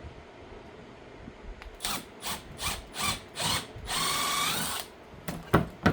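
Power drill run in five short trigger bursts, then a longer run of just under a second with its motor whine rising in pitch. Two sharp knocks follow near the end.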